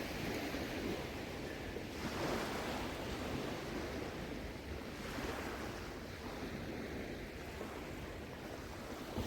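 Small waves washing onto a sandy beach: a steady hiss of surf that swells gently now and then, with some wind rumbling on the microphone.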